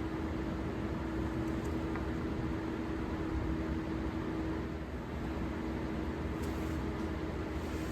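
Steady mechanical hum with a constant low tone and an even hiss, like a motor-driven machine running continuously.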